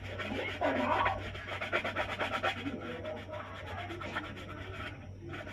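Scratchy rubbing or scraping noise, made of many quick strokes, over a steady low electrical hum.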